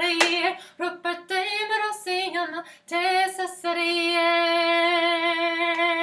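A woman singing a melody unaccompanied, closing the last phrase of a choir song. Sharp percussive beats from the song's stomping actions fall between the sung syllables in the first half, and she then holds the final note steadily from a little past halfway.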